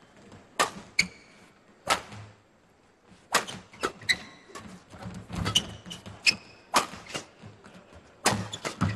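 A badminton rally: repeated sharp smacks of rackets hitting the shuttlecock at an irregular pace, with brief high squeaks of court shoes between shots.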